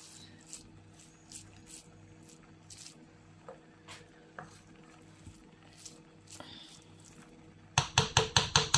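A wooden spoon stirring and turning cooked jollof rice in an aluminium pot: soft scrapes and light clicks against the pot. Near the end, a fast run of about eight loud knocks in about a second.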